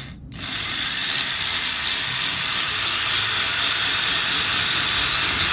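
Electric drill boring a 15/64-inch hole into a stucco wall: the motor starts about a third of a second in and runs steadily, getting a little louder, with a faint whine creeping up in pitch as the bit cuts.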